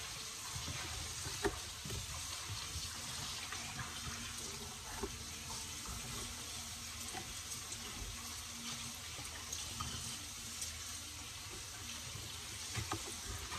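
Bacon sizzling steadily in a frying pan, with a few sharp taps of a kitchen knife on a cutting board as a green bell pepper is sliced.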